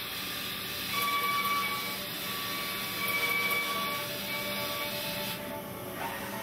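Mazak INTEGREX i-100 BARTAC-S mill-turn machine shoulder milling with a 50 mm cutter under flood coolant: a steady machining noise with a high ringing tone that comes and goes.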